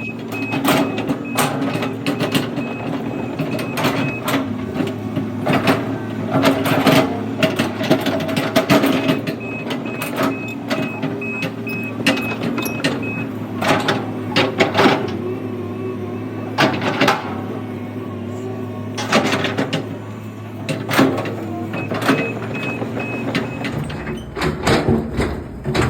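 Engine of a heavy work machine running steadily, its backup alarm beeping in three spells as it reverses, with repeated clanks and knocks.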